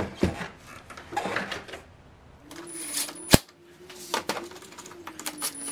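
Plastic clicks as the air intake box is pressed into place, then a cordless power driver runs steadily from about two and a half seconds in, driving in the box's fastener, with a couple of sharp clicks along the way.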